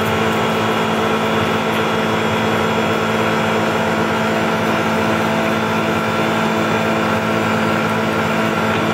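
Tormach PCNC 1100 CNC mill's spindle running steadily as a face mill takes a light finishing cut across 6061 aluminum plate: a steady machine drone with several held tones.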